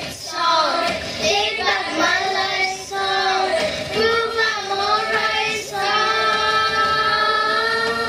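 A child singing a pop song, the voice gliding between notes, then holding one long note near the end.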